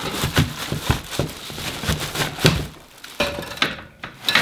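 Handling noise from unpacking a bike from a cardboard shipping box: plastic wrap rustling, and the cardboard and parts knocking with a series of short dull thunks as a fat-tyred wheel is pulled out.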